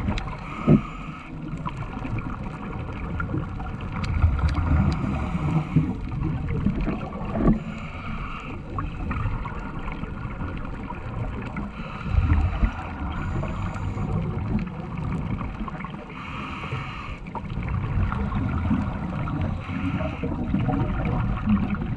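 Underwater noise heard through a camera housing: a low, uneven rumble of moving water, with a brighter hiss that comes and goes every few seconds and a few sharp knocks, the loudest about a second in.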